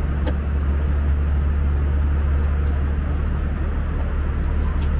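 Airbus A320 cabin noise in cruise: a steady low drone with a rushing airflow hiss. A light click sounds about a third of a second in, and a couple of faint ticks come near the end.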